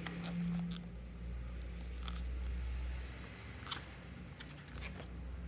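Photobook pages being handled and turned: soft paper rustles and a few crisp clicks, over a low rumble of handling noise.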